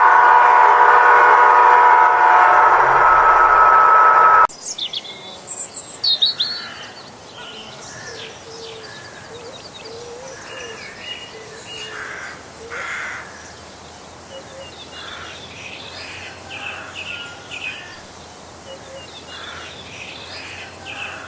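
Model diesel locomotive's sound-decoder horn sounding a steady chord of several tones, which cuts off abruptly about four and a half seconds in. After the cut, birds chirp and call over faint background noise.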